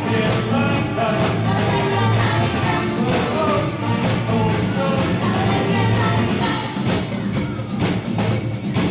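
Live band playing upbeat music with a steady drum beat, bass and a singing voice.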